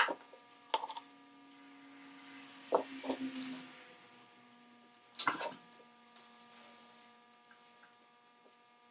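Sharp knocks and clicks of a metal lamp body and hand tools being set down and picked up on a workbench, the loudest right at the start and again about five seconds in, with a soft hiss for about a second around the middle.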